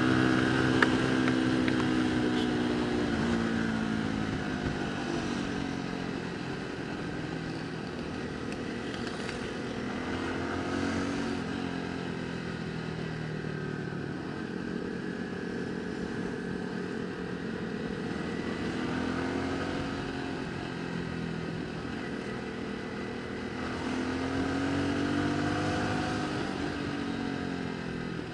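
Motorcycle engine running while riding, its pitch rising and falling a few times as the revs change.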